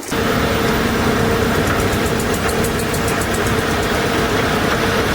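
An engine running steadily, with a level hum and a run of fast high ticking through the middle. It starts suddenly.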